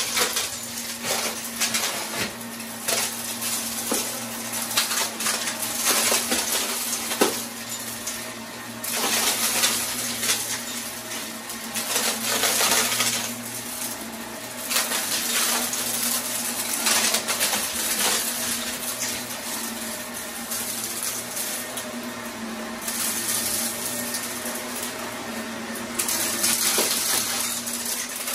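Upright vacuum cleaner running over carpet, its motor humming steadily while small hard bits of debris crunch, click and rattle as they are sucked up through the nozzle and hose. The crackling swells and fades with each push and pull of the vacuum.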